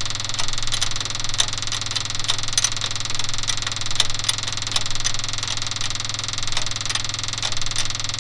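Ford 6.9 IDI V8 diesel idling with steady clatter and sharp ticking while its injector lines are cracked loose to bleed air after an injection pump replacement.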